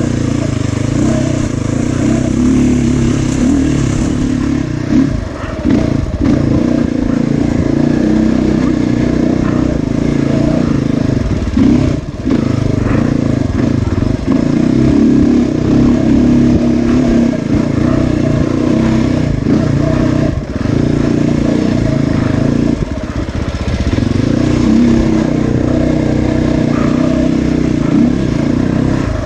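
Dirt bike engine running hard under changing throttle, easing off briefly a few times and picking up again.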